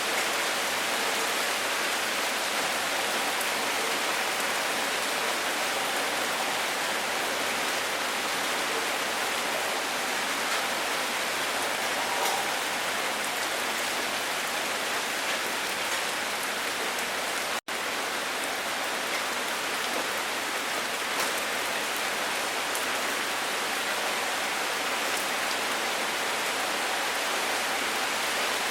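Steady rain falling, an even hiss with faint scattered drop ticks. The sound cuts out for an instant about two-thirds of the way through.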